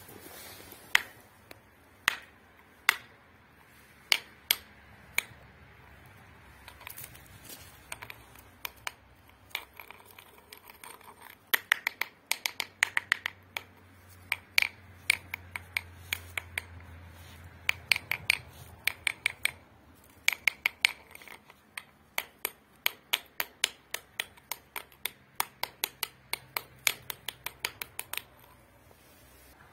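Small hand pick's metal blade striking and scraping into stony gravel ground, with sharp clicks of metal on stone. A few scattered strikes at first, then quick runs of strikes about a third of the way in.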